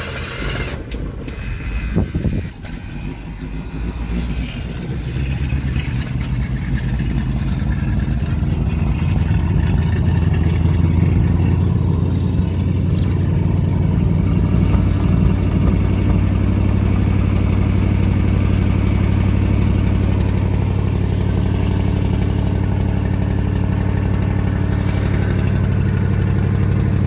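A 1965 Ford Thunderbird's 390 V8 starting up about two seconds in, running roughly at first and growing louder, then settling into a steady idle that sounds pretty good.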